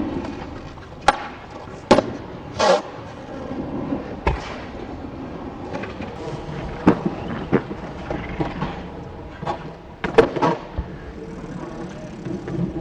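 Skateboard wheels rolling on concrete, broken by several sharp clacks of the board and trucks striking the ground, some ringing briefly.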